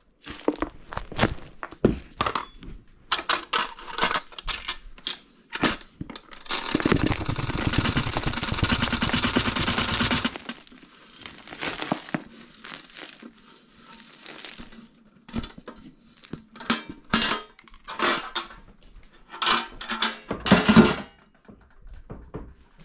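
Dry rolled-oat mix being handled: a spatula scrapes and stirs the flakes in a tray with quick clicks and rustles, then about four seconds of dense rattling as the oats pour into a plastic container, followed by scattered knocks and scrapes of the containers.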